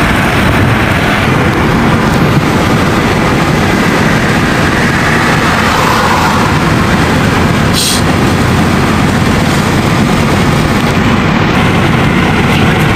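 Steady road and wind noise of a car driving at highway speed, heard from inside the cab, with one brief sharp tick about eight seconds in.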